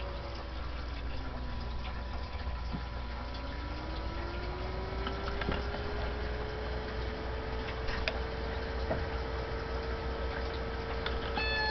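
CB radio static: a steady hiss, with a faint whistle that slides down, rises and holds, then falls away near the end. A short electronic beep sounds right at the end.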